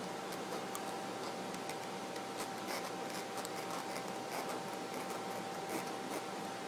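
Razor blade scratching and cutting across plastic smart film, a run of light irregular scratches and ticks.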